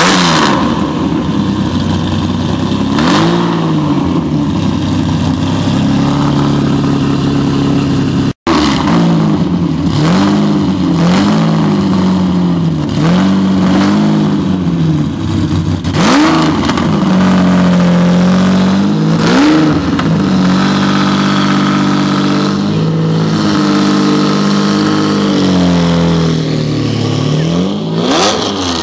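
Lamborghini Diablo V12 engine idling and being blipped repeatedly, its pitch rising and falling with each rev before settling back to a steady idle.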